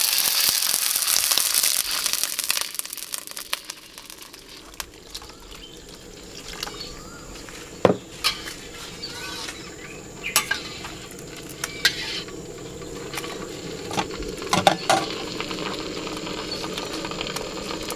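Water added to hot oil with frying garlic and shallots in a wok sizzles loudly, dying down over the first few seconds. A metal utensil then stirs and clinks against the wok a few times while the broth heats.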